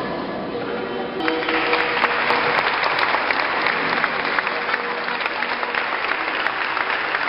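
Crowd applauding, the clapping starting about a second in and holding steady, over music with sustained notes.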